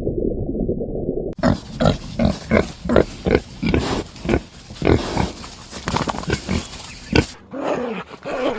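A muffled low rumble, then, after a cut about a second and a half in, an animal grunting in a quick, even series of about three grunts a second for some six seconds.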